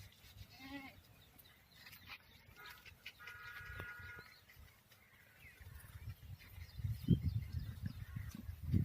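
Goats bleating: a few short calls, the clearest about three seconds in. Low rumbling noise comes in near the end and is the loudest part.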